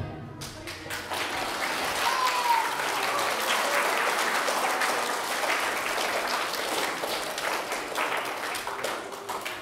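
Audience of children and adults applauding, a dense run of clapping that thins out near the end.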